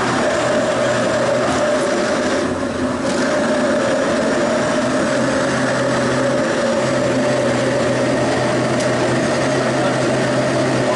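Countertop blender motor running steadily, churning a thick seasoning paste of salt and olive oil, with a constant hum; the level dips briefly about two and a half seconds in.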